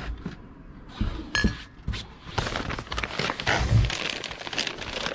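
Drinking glasses clink together once, with a brief ring, then several seconds of rustling and crinkling as the box and its contents are handled.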